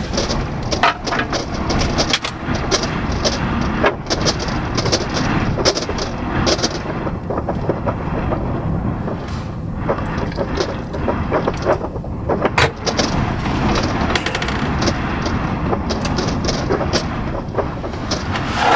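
Strong blizzard wind blowing in gusts, a dense rushing noise with many sharp ticks and knocks scattered through it.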